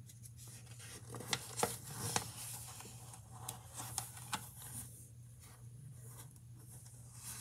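Paper pages of a picture book being turned and handled: a few light clicks and rustles in the first half, over a low steady hum.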